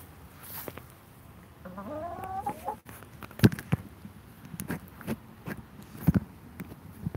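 A hen gives one rising, squawking call about two seconds in. A run of sharp knocks and taps follows, the loudest just after the call.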